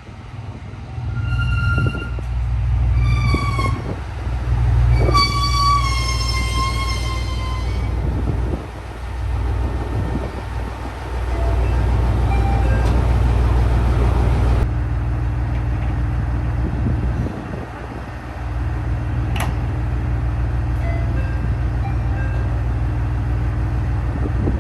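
A train running at the platform with a steady deep rumble, its horn sounding two short blasts and then a longer one that falls slightly in pitch.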